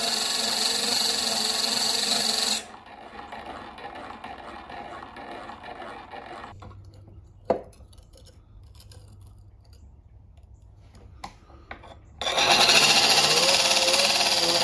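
Small electric grinding wheel running with a steel plane iron held against it, a steady whine with a grinding hiss. It cuts out about two and a half seconds in, leaving a quiet stretch broken by a sharp tap around halfway. Near the end the grinder runs again, its whine rising slightly.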